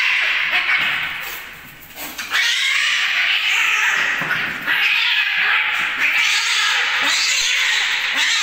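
Two domestic cats fighting, yowling loudly almost without a break, with a short lull about two seconds in.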